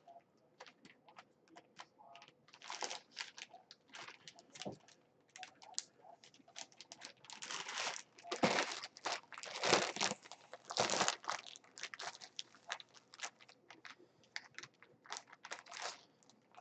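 A jersey being packed into plastic packaging: crinkling and rustling of plastic with handling clicks, and several louder rasping stretches about halfway through.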